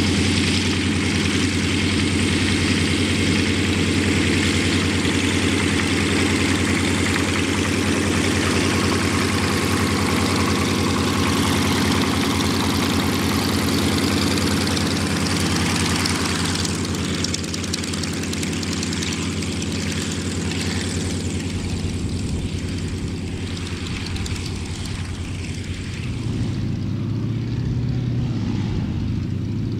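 Yak-55M aerobatic plane's nine-cylinder M-14P radial engine and propeller running at high power. The propeller's hiss dies down about halfway through, and the engine's pitch shifts near the end.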